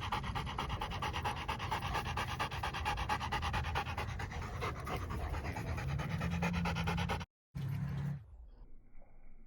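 A dog panting fast and hard after running, close to the microphone, with a quick, even rhythm that cuts off about eight seconds in.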